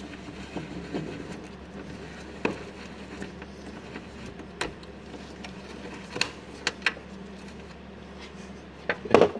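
Scattered sharp metallic clicks and knocks from hand tools working the radiator's top mounting bolts and bracket, about eight in all, the loudest a quick cluster near the end, over a steady low hum.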